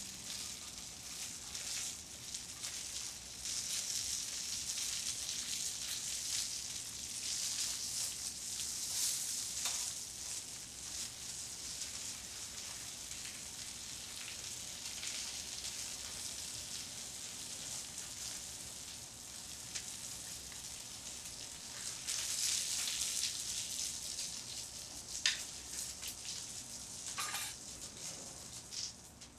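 Steak sizzling steadily on a flat steel teppanyaki griddle, a high frying hiss. A few sharp metal taps near the end come from the knife and spatula on the griddle plate.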